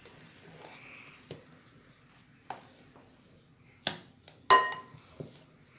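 Utensil knocking and scraping against a metal mixing bowl while cream is folded gently into a chocolate mousse mixture: a handful of scattered light knocks. The loudest, about four and a half seconds in, rings briefly like metal.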